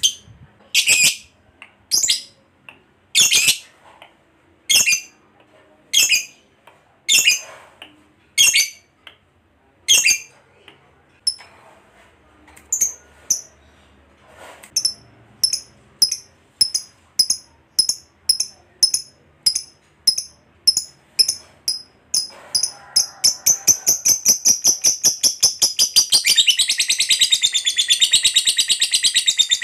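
Lovebird calling: shrill single calls about once a second, then sharper chirps that come faster and faster until, about three-quarters of the way through, they run together into a long, rapid chattering trill, the 'ngekek' that lovebird keepers prize.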